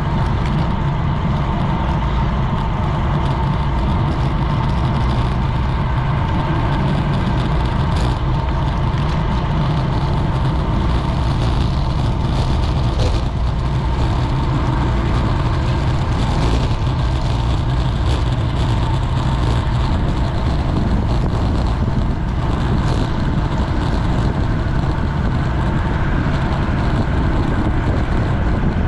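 Steady, loud wind rushing over a GoPro's microphone as it rides on a road bike, mixed with tyre and road noise.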